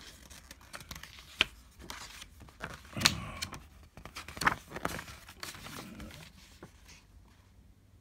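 Paper instruction booklet being leafed through and handled: rustling with a few sharp taps, the loudest about one and a half, three and four and a half seconds in.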